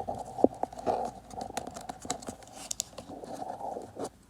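Trading cards being handled and shuffled: light rustling with many small clicks and taps.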